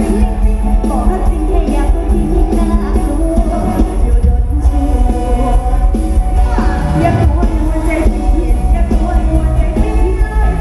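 Loud live band music with a heavy, steady bass and a singer's voice.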